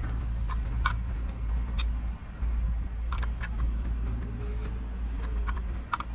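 Irregular metal clinks and taps of hand tools working on rusted fasteners and brackets of a boat engine, over a steady low rumble.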